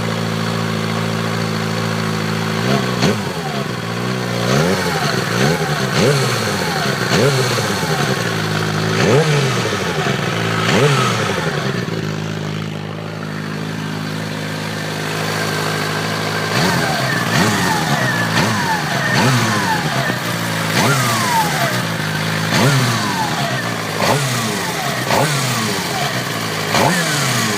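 Suzuki GSX-R600 K6 inline-four engine idling, then blipped again and again, with a pause in the middle, while a steady high whine sounds under the revs. The starter clutch and the cam chain and tensioner have been replaced and the whine remains.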